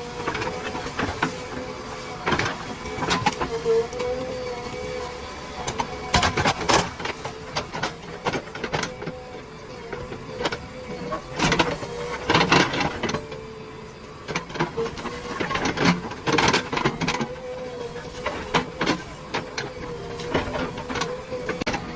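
JCB 3DX backhoe loader at work: its diesel engine and hydraulics run with a steady whine, under irregular clanks and knocks of the working gear.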